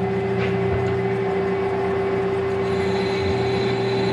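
Metal lathe running with its chuck spinning, a steady hum from the motor and gearing. A thin high whine joins about three seconds in as the tool starts taking a light cut on the steel bushing.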